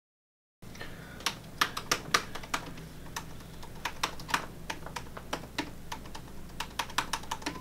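Typing on a laptop keyboard: quick, irregular keystroke clicks that begin about half a second in, over a low steady room hum.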